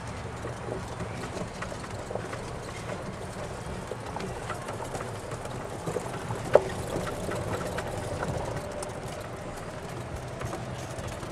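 A slow-moving vehicle running with a steady low hum and light rattles, with one sharp click about six and a half seconds in.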